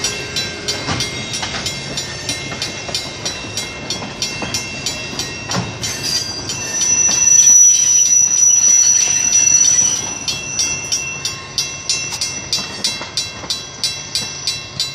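Railroad grade-crossing bell ringing in steady strokes about three a second as passenger cars roll past on the rails. For about three seconds in the middle a steady high squeal from the wheels rises over it, then fades as the last cars go by. The bell keeps ringing after that.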